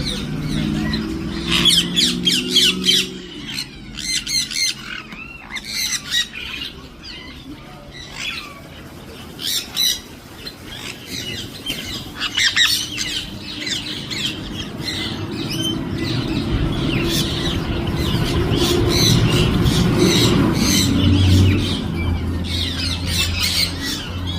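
Parrots squawking: harsh, shrill calls that come in repeated bouts, dense about two seconds in, again around ten seconds and through the last few seconds.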